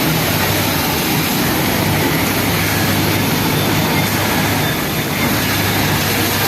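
Industrial flatlock sewing machine running steadily, a continuous mechanical hum with a hiss over it.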